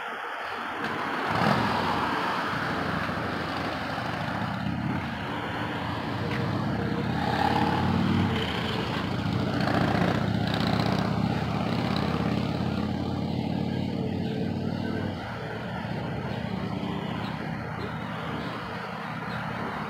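Road traffic: a car engine runs steadily close by, joined from about a second and a half in and easing off about fifteen seconds in, over the general noise of traffic.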